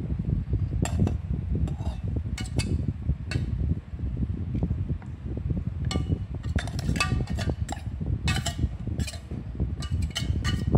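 A metal spoon clinking and scraping against stainless-steel mixing bowls as minced beef is scraped out onto mashed potatoes. There are a few clinks in the first seconds, then a quick run of them in the second half, over a steady low rumble.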